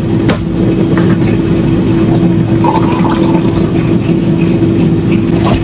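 A steady mechanical kitchen hum with one constant low tone, with a few light clinks of a glass jug and spoon.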